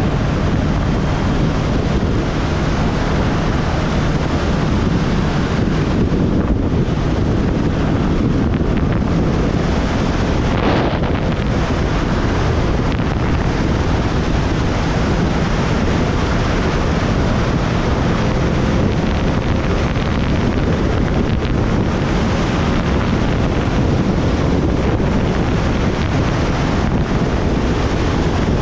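Heavy, steady wind noise on a camera microphone carried on a moving motorcycle at road speed, with the motorcycle's engine note faint underneath.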